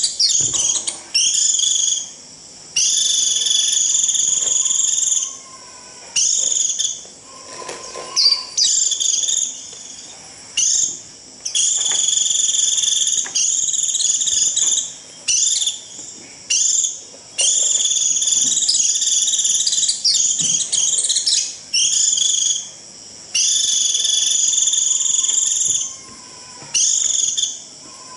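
White-eye giving its shrill, buzzy 'rít' flock-calling call, used to lure a flock in, in repeated bursts of one to three seconds with short gaps between.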